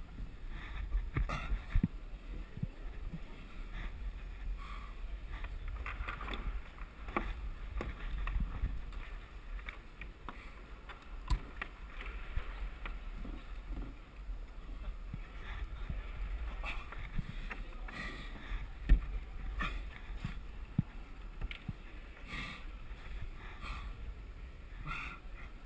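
Low rumble and rustling from a head-mounted action camera while a climber moves up a wall, with scattered light knocks and clicks of hands and gear on the holds, one sharper knock about two-thirds of the way through.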